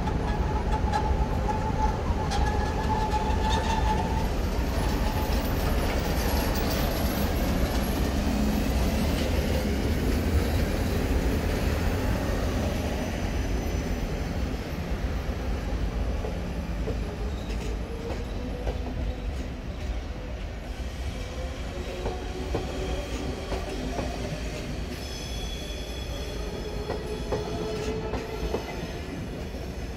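An SBB Re 420 electric locomotive rolling slowly past as the train pulls out, then a line of passenger coaches, with a steady rumble of wheels on rail, clicking over rail joints and some wheel squeal. It is louder while the locomotive goes by and a little quieter after about the middle, as the coaches pass.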